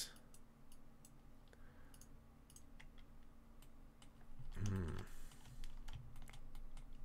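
Scattered computer keyboard taps and mouse clicks, sharp single clicks at an uneven pace, over a faint steady hum. About four and a half seconds in, a short wordless vocal sound.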